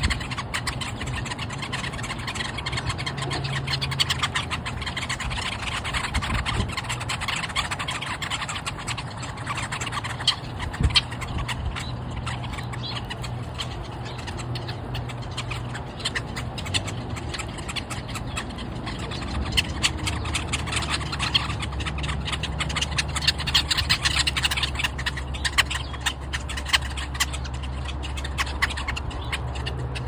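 A flock of Brewer's blackbirds, European starlings and sparrows feeding close to the microphone: a dense run of sharp chips, clicks and chatter, with a few louder flaps and pecks. A steady low engine hum lies underneath and changes pitch about twenty seconds in.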